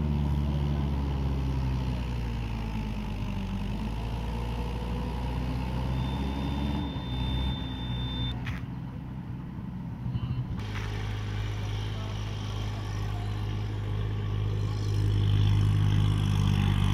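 Motor vehicle engines running steadily, their pitch sliding up and down a few seconds in, then one engine growing louder near the end. A steady high tone sounds for about two seconds midway.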